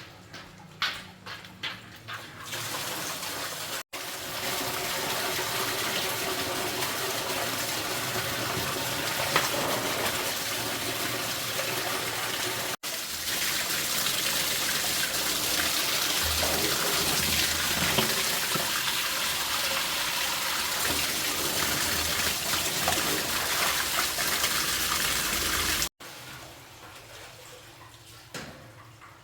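Water running steadily in a hissing stream, after a few sharp clicks and taps at the start. It breaks off abruptly twice, then stops a few seconds before the end.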